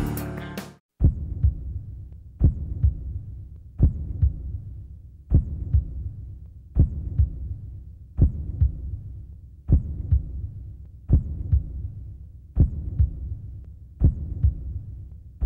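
Heavy rock music cuts off about a second in. A slow heartbeat sound effect follows: a deep thud and a softer double beat, repeating about every one and a half seconds.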